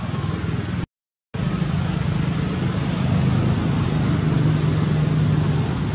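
Steady low rumbling noise, with the sound cutting out completely for about half a second about a second in.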